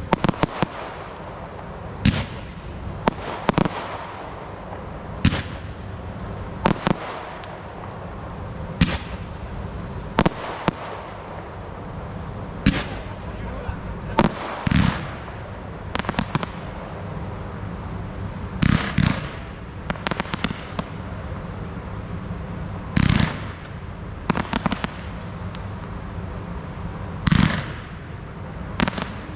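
Low-noise wedding fireworks display: sharp pops every second or two, some coming in quick clusters of several cracks.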